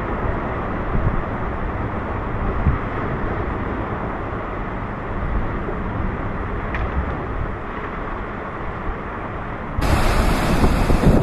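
Wind buffeting the microphone over surf breaking on the rocks, a steady rumbling noise. Near the end it turns louder and brighter, with more wind gusts and surf.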